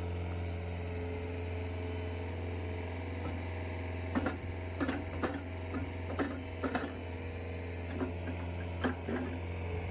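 Compact track loader's engine running steadily while it powers a 20-inch post-hole auger. From about four seconds in, a string of short scrapes and knocks comes from a shovel digging loose dirt out of the hole.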